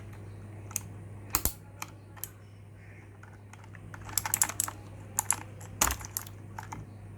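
Keys of a Havit KB498L mechanical keyboard with clicky blue switches being pressed. A few single key clicks come first, then a quicker run of keystrokes starts about four seconds in.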